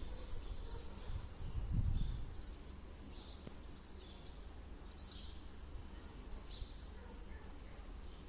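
Laretti air conditioner giving a low, steady hum that swells and then eases to a quieter level about two and a half seconds in. Faint bird chirps sound over it.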